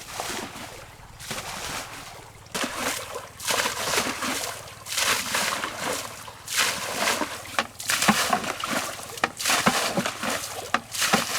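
Water being bailed out of a small pond by hand: scoop after scoop slops and splashes, about one every second.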